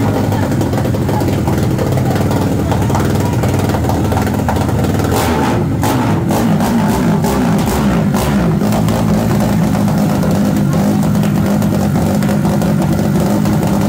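Single-cylinder 190 cc OHC engine of a Honda CG-type motorcycle revving hard through an open aftermarket muffler, its pitch rising and falling through the middle of the run, with sharp pops as it spits flame from the exhaust.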